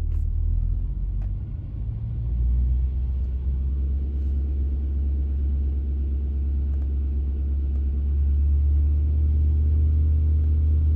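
2006 Pontiac GTO's 6.0-litre LS2 V8 running steadily with a light touch of throttle, getting a little louder about two seconds in and again near the end. It runs evenly, no longer misfiring after its faulty fuel injector was replaced.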